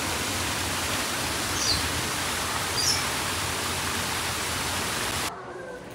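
Small waterfall splashing steadily into a pond, an even rush of water, with two short high chirps about two and three seconds in. The rush cuts off abruptly near the end.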